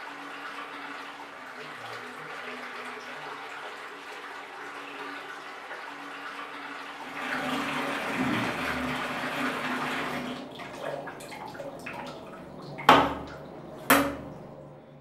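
Water running from a tap into a basin, louder for a few seconds about halfway through as a knife is rinsed under the stream. Near the end come two sharp, loud knocks about a second apart.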